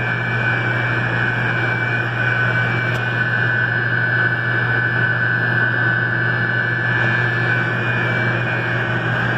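Steady drone of running centrifugal chiller machinery: a constant hum with an unchanging high whine above it.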